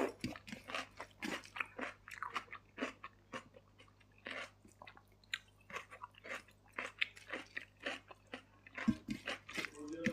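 Close-miked eating sounds from a person eating a mutton thali: irregular wet mouth clicks and smacks of chewing, several a second.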